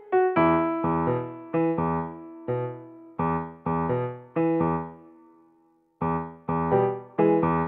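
Background music: a piano-like keyboard playing short chords about two a second, each dying away. About five seconds in, one chord rings out and fades almost to silence before the chords start again.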